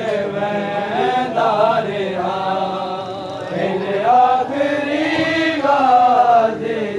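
Men's voices chanting a Shia mourning noha (kalam) in long, melodic held lines that glide up and down.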